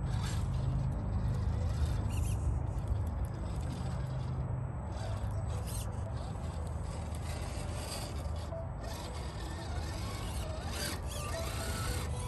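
1/10-scale RC rock crawler (Redcat Gen8 V2) crawling slowly. Its motor and gears whine faintly while the tires and chassis scrape and crunch over loose bark, twigs and dead wood.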